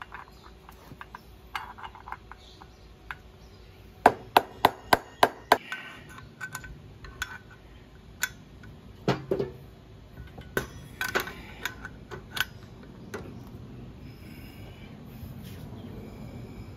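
Hand tools clinking and tapping against a scooter's rear clutch as a large socket and a clutch holder tool are fitted over the clutch nut. A quick run of about seven sharp metallic taps comes a few seconds in, then scattered clinks and knocks.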